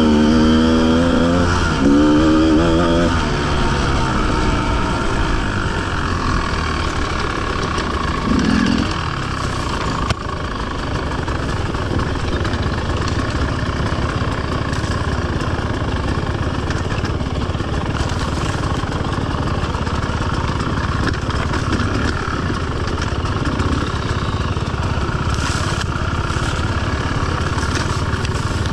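Enduro motorcycle engine running as the bike is ridden, its pitch rising and falling with the throttle in the first few seconds, then a steady dense running sound with a single knock about ten seconds in.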